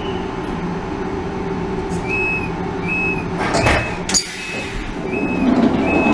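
Door-closing warning beeps on a German regional train: a short high beep about every three-quarters of a second over the steady hum of the standing train. A sharp clack comes a little after four seconds in, and near the end the sliding plug door moves shut.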